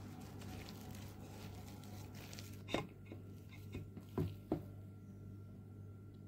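A hand mixing and kneading gram flour dough in a stainless steel bowl: a soft rustle of the crumbly flour mixture, then a handful of sharp knocks against the bowl between about three and four and a half seconds in. A low steady hum runs underneath.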